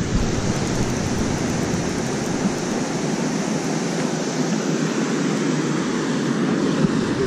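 Steady rush of water pouring through a concrete dam spillway.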